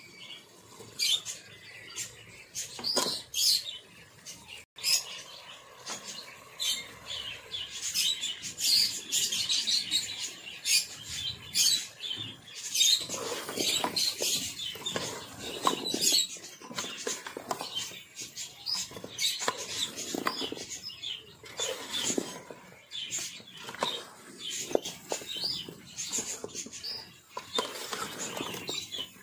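Meat and lotus root slices sizzling and crackling in hot masala in a metal pot. From about halfway, a metal spoon scrapes and knocks against the pot as the pieces are stirred.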